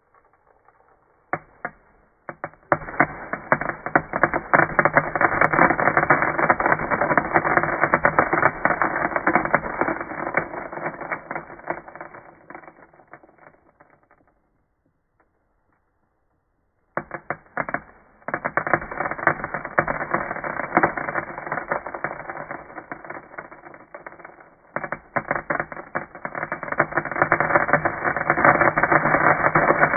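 Home-made imitation of a fireworks crackle: dense, rapid crackling and popping that builds up, fades out around the middle, stops for a few seconds, then starts again and keeps going.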